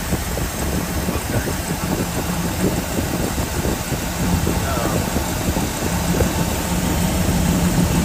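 Bullnose Ford pickup's engine idling steadily while its ignition timing is checked with a timing light, in a hunt for the cause of its hard starting.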